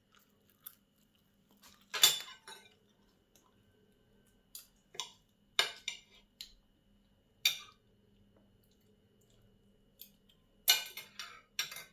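Fork and knife clinking and scraping on a white ceramic plate as a Weisswurst is cut, in a handful of separate sharp clinks, the loudest about two seconds in and a quick cluster near the end.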